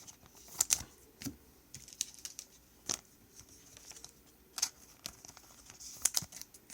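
Trading cards being handled on a table: scattered sharp clicks and taps with light rustling between them.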